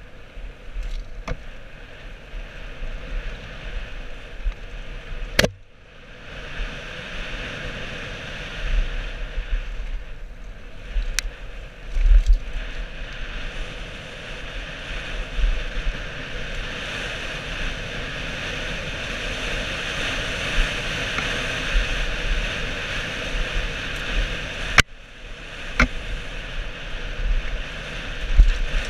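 Wind rushing over a helmet camera's microphone and tyres rolling on a dirt trail as a full-suspension downhill mountain bike descends at speed. Several sharp knocks from the bike hitting bumps stand out, near the fifth second, around eleven seconds, and twice near the end.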